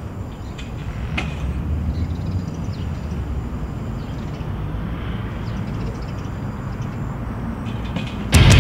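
Steady low rumble of city traffic, with a few faint metallic clicks and one sharper clank about a second in from the BMX bike and chain-link fence being handled. Loud heavy rock music cuts in near the end.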